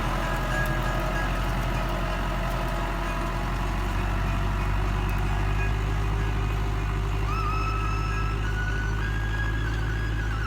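Massey Ferguson 274S tractor's diesel engine running steadily under way. In the last few seconds a thin high whine joins it and steps up slightly in pitch.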